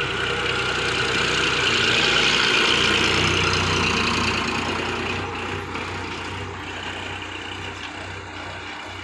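Sonalika tractor's diesel engine running steadily as it pulls a tillage implement past, loudest about two to three seconds in and fading as the tractor moves away.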